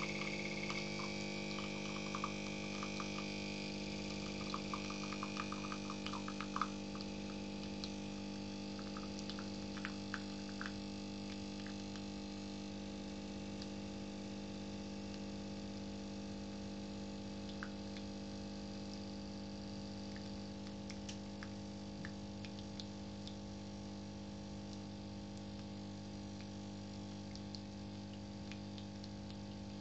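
Last drips of coffee falling from a Philips automatic coffee machine's spout into a mug after brewing, a scatter of small sharp drips over the first several seconds. A steady low hum runs throughout.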